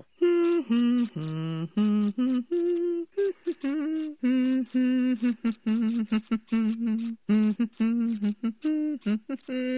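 A woman's voice humming a slow wordless tune in a string of held notes with short breaks between them.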